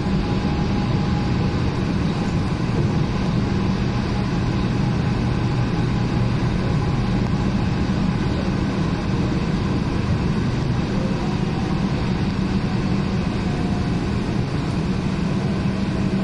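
Cabin noise inside a moving electric train: an even rumble of the running train with a steady low hum underneath.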